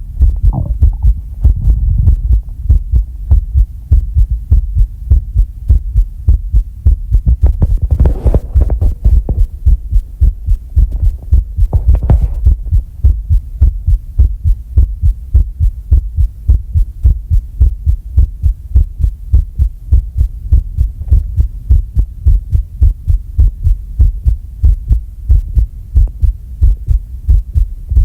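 A person's heartbeat picked up close to the microphone during a breath hold: a fast, even thumping that runs steadily. Two short breathy sounds come about eight and twelve seconds in.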